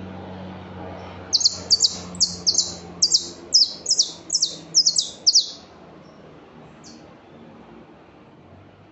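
A songbird singing a fast phrase of about a dozen sharp, downslurred whistled notes, a little over three notes a second, with one more note after a short pause.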